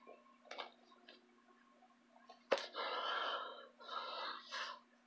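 A person's breathy exhalations and mouth noises, with a sharp click about two and a half seconds in, over a faint steady hum.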